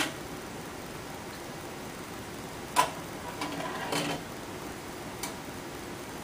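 Steady hiss of an aquarium's air-bubble wall, with a few sharp clicks: the loudest about three seconds in, then a brief clattering rattle about a second later, and a faint click near the end.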